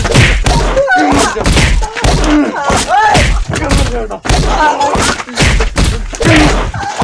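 A staged fist fight: a rapid series of heavy punching thuds, about two a second, mixed with shouts and grunts from the fighters.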